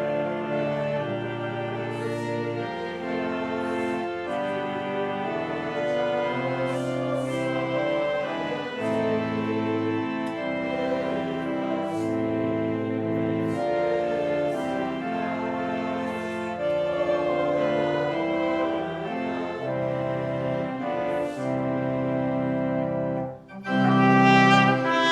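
Organ music playing slow, sustained chords that change about once a second. Near the end it stops briefly and a louder, fuller passage begins.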